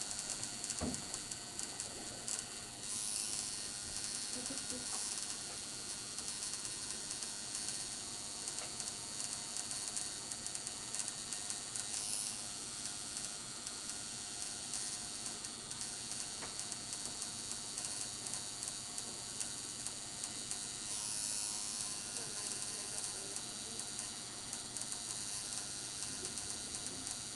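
Electric tattoo machine buzzing steadily as its needle works on the skin of a forearm.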